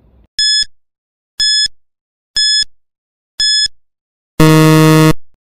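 Quiz countdown timer sound effect: four short high beeps about a second apart, then one longer, lower buzz that ends the countdown.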